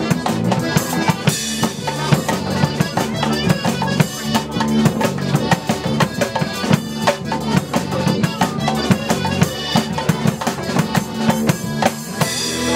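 Live folk band playing an instrumental passage, with drums beating steadily over a low tuba bass line and guitars.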